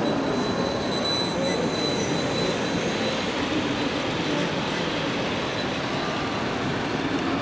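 HOm-scale model electric train running along the layout track: a steady rolling and motor noise with a thin high whine.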